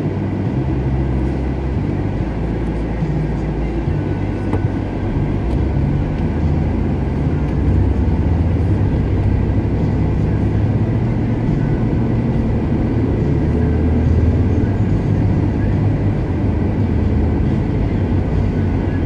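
Steady low engine and road rumble heard inside a vehicle's cabin as it pulls away from a traffic light and drives on, a little louder from about eight seconds in.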